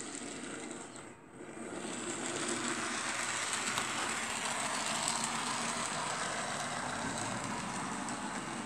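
Model diesel locomotives running on a model railway layout: a steady whirr of small electric motors with a high whine and the wheels running over the rails, getting louder about two seconds in.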